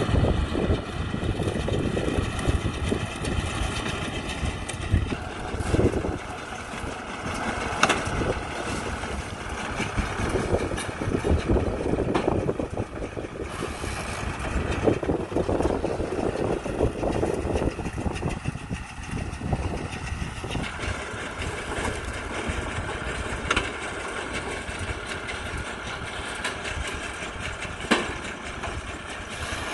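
Kubota tractor's diesel engine running steadily as it drives a mini round baler through straw, with a steady high whine over the engine. There are a few sharp knocks, one about eight seconds in and two more near the end.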